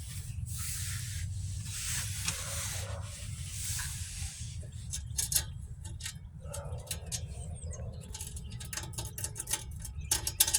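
Small parts being handled and fitted by hand: a few seconds of rubbing and scraping, then a rapid run of clicks and taps, over a steady low hum.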